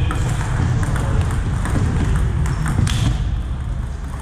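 Table tennis rally: the celluloid-type ball clicking sharply off the paddles and the table at uneven intervals, over a steady low hum.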